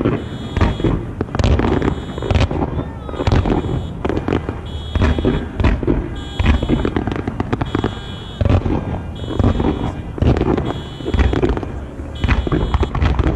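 Aerial fireworks shells launching and bursting in rapid succession, a continuous barrage of booming bangs and sharp reports several times a second. Behind them an electronic alarm beeps in a high tone about once a second.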